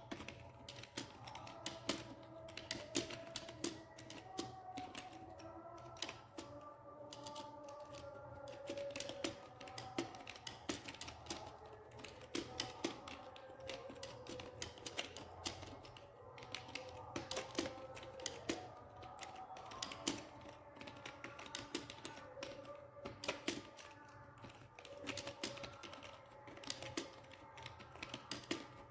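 Fast, continuous typing on a computer keyboard, several key clicks a second in an uneven rhythm, with background music underneath.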